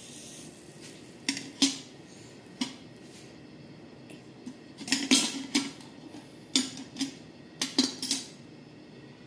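Steel kitchenware clinking: a steel ladle and a steel bowl knock together in a series of sharp metallic clinks, in small groups, the loudest about five seconds in.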